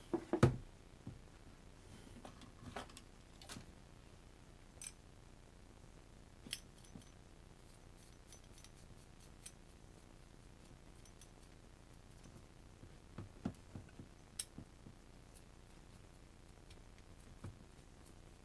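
Scattered light clicks and clinks of small metal parts and hand tools being picked up and set down on a workbench, with a louder knock about half a second in and a quick run of taps about two thirds of the way through.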